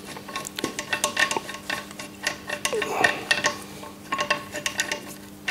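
Small metal clicks, clinks and scrapes as the threaded end fitting is worked loose from the steel tube of a Thörns T2 grinder's table-wire tensioning spring mechanism. A faint steady hum runs underneath.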